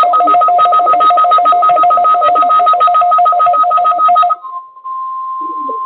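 Weather radio broadcast signal: a loud electronic signal rapidly pulsing between two pitches, which about four seconds in gives way to a softer, steady single tone, the weather radio warning alarm tone.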